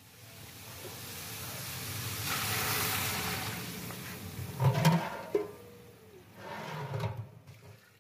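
Water pouring into a large hot deg of chicken korma, hissing and sizzling as it hits the hot pot, swelling and then fading. Two louder low thumps come about halfway through and near the end as the long metal ladle works the pot.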